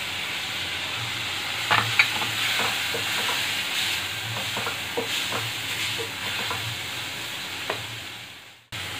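Grated carrot and greens sizzling in hot oil in a stainless steel kadai while a wooden spatula stirs them. The spatula knocks and scrapes against the pan from about two seconds in. The sound fades out just before the end.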